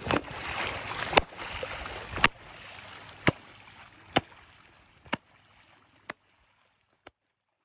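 A soaked cloth is swung overhead and slapped down onto the water surface, making a sharp smack about once a second over splashing water. The sound fades away toward the end.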